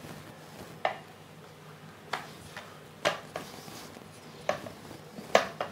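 Stainless steel rolling pin knocking against a steel plate as dough is rolled out: about seven sharp, irregular clacks, roughly one a second.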